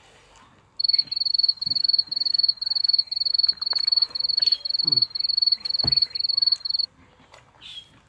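A cricket chirping loudly and close by in a steady high pulsed trill, about two chirps a second. It starts about a second in and stops abruptly some six seconds later, over a few faint clicks.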